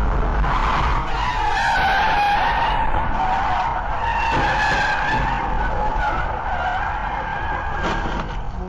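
Car tyres squealing in a long skid, one sustained, slightly wavering screech lasting several seconds, over steady road rumble. The car is sliding out of control across the highway lanes.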